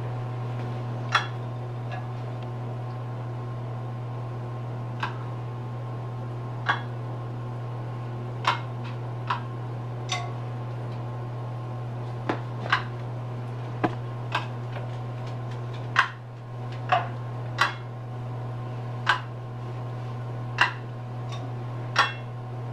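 Metal kitchen tongs clicking and tapping against metal fajita sizzler pans as seared scallops are set down one by one: about sixteen sharp clicks at irregular intervals, over a steady low hum.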